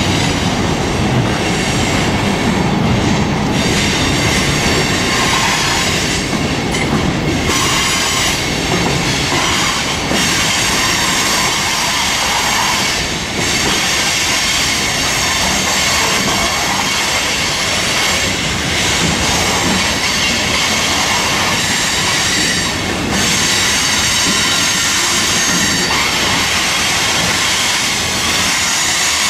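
Freight cars rolling slowly past on the rails, their steel wheels squealing in several steady high tones over the rolling clatter of the wheels.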